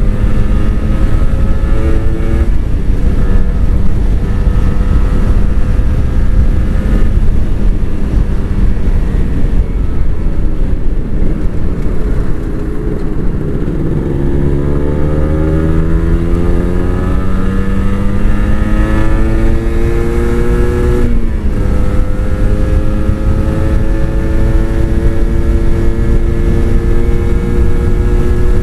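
Kawasaki Ninja RR 150's single-cylinder two-stroke engine on its stock exhaust, ridden on the road. It holds a steady note, eases off a little before halfway, then climbs in pitch as it pulls through a gear. It drops sharply at a shift about three quarters of the way through and climbs again.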